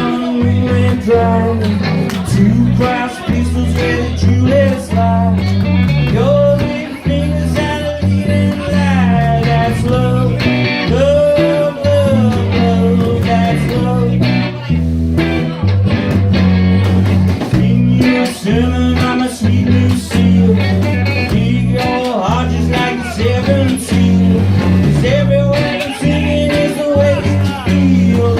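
Live rock band playing a blues-rock song: electric guitars over a pulsing bass line and drums.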